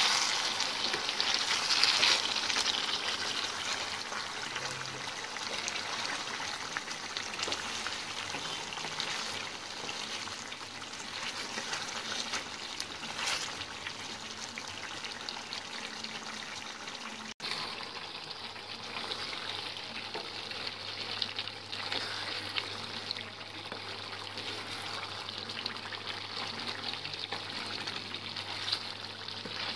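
Bone-in beef sizzling steadily in a pan of spiced masala, cooking down in its own released juices with no water added, while a wooden spatula stirs it. The sound briefly drops out about two-thirds of the way in, then carries on softer with a low hum under it.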